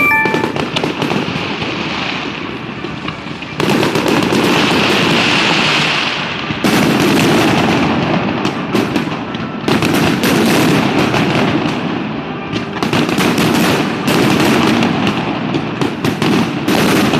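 A fireworks display: rapid strings of bangs and crackles from aerial shells and cakes, coming in repeated surges that start suddenly, one after another.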